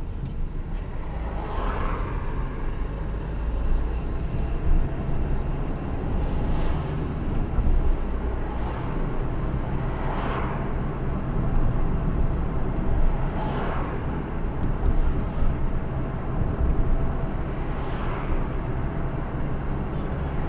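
Steady low road and engine rumble of a car being driven, with other vehicles whooshing past five times, a few seconds apart.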